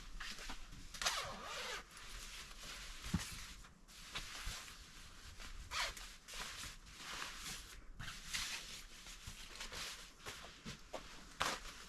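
Repeated short scraping and rustling sounds, with a sharp knock about three seconds in.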